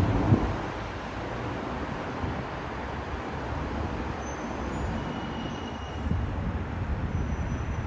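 Outdoor city ambience: a steady wash of traffic noise, with a heavier low rumble at the start and again near the end.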